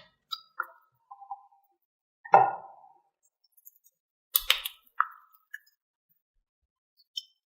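Scattered short toy sounds: a few small plops, a louder plop about two seconds in, then a sharp click followed by a short ding, with quiet gaps between.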